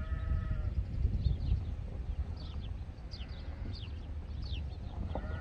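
Wind rumbling on the microphone at a livestock pen, with small birds giving quick, high, downward-sliding chirps through the middle. A short bleating call from a farm animal comes in the first half-second and again near the end.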